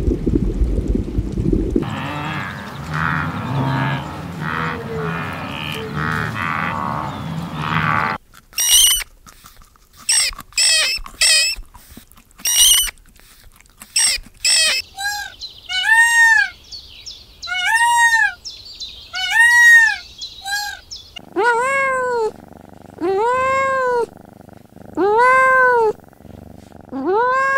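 Kitten mewing over and over, short calls that rise and fall in pitch, about one a second, through the second half. Before that comes a brief low rumble of water, a few seconds of crackling noise, then a run of short, very high squeaks.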